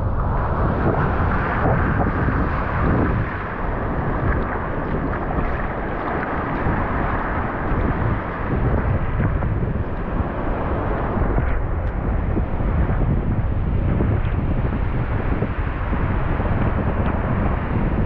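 Wind buffeting the microphone: a steady, rough rumble with noise hissing above it.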